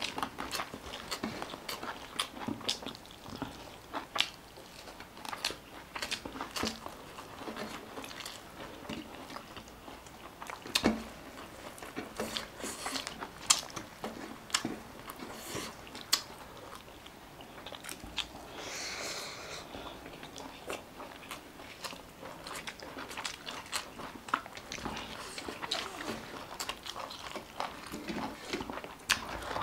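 Close-miked eating sounds from a meal of rice, fried chicken and greens: chewing and biting, with many short, sharp clicks scattered irregularly throughout.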